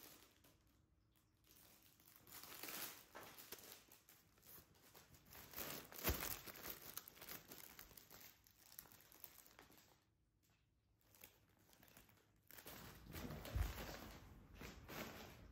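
Faint crinkling and rustling of clear plastic packaging being handled and opened, then a collapsible plush fabric cat tunnel being pulled out and handled, in uneven bursts with two short pauses.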